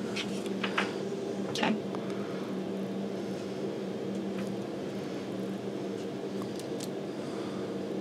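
Steady electrical or mechanical hum from workshop equipment, with a few light clicks and taps of small parts being handled.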